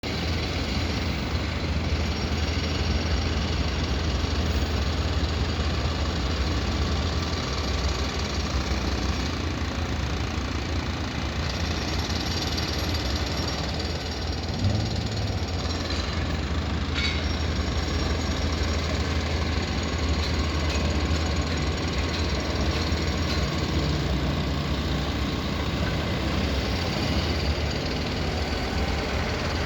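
Steady low mechanical rumble of running engines, with one short knock about halfway through.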